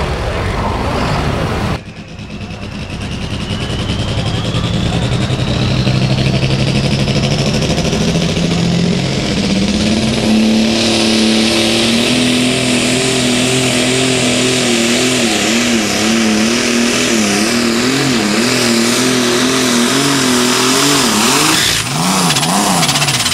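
Farmall super stock pulling tractor's turbocharged diesel engine. A high whine rises as it revs at the line, then it runs at full power under the load of the sled, its pitch wavering up and down. Another tractor's engine is heard briefly at the start and breaks off about two seconds in.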